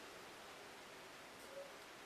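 Near silence: room tone with a faint hiss.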